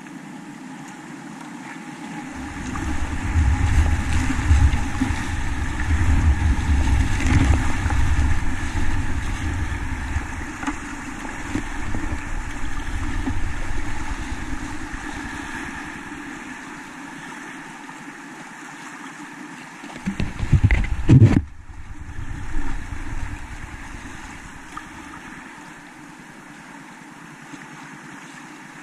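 Rushing whitewater of a small river in high water, heard from a kayak running the rapids, with heavy low buffeting on the microphone for much of the first half. Just after twenty seconds a loud burst of low rumbling ends in a sudden brief dropout of the sound.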